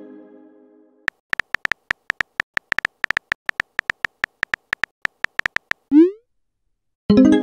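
Texting-app sound effects: the fading tail of a message chime, then a quick run of keyboard typing clicks for about five seconds. A short rising swoosh follows as the message is sent, and a second bright chime comes near the end.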